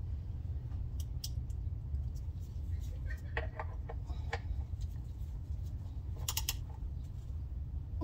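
Socket ratchet clicking in short runs and light metal tool taps, with a few short squeaks about three and a half seconds in, over a steady low outdoor rumble.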